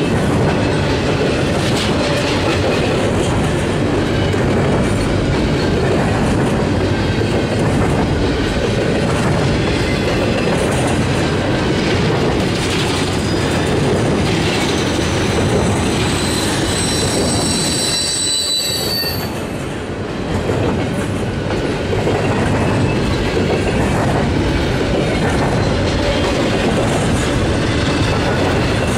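Freight train's autorack and double-stack container cars rolling past: a steady rumble of steel wheels on rail with clicking over the rail joints. A high, several-toned wheel squeal comes in a little past the middle and lasts about three seconds.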